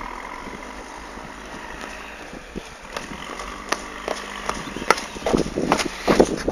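Steady outdoor hiss with scattered ticks, then footsteps coming closer and getting louder over the last second or so.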